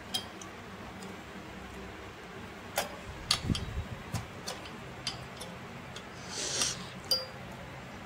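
A few sharp metallic clicks and taps from a hex key working the screws of a server CPU heatsink loose, over a low steady hum, with a short scrape about six and a half seconds in.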